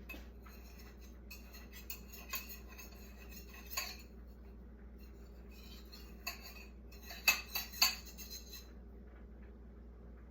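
Kitchen utensils and dishes clinking and clattering in scattered knocks, the loudest few close together about seven to eight seconds in, over a faint steady low hum.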